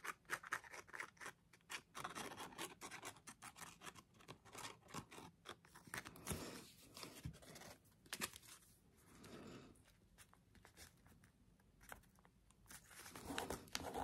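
Faint scratching and rustling of paper: a squeeze bottle of glue runs along the bottom edge of a tea-bag paper pocket, and fingers press and smooth the pocket onto the journal page. The sound is many small scratches and taps, with a few quieter gaps.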